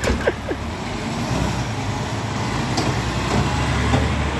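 Peterbilt 520 garbage truck's diesel engine running steadily and building slightly in level, with a few short squeaks in the first half-second.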